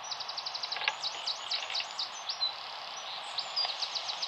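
A songbird singing: a quick trill of short downward notes, then slower slurred downward chirps, over a steady outdoor hiss.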